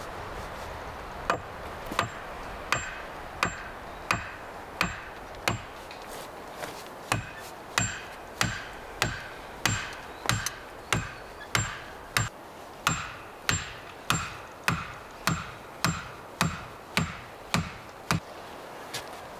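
Hatchet blows on wood, a steady series of sharp strikes about three every two seconds, each with a short ring, starting about a second in.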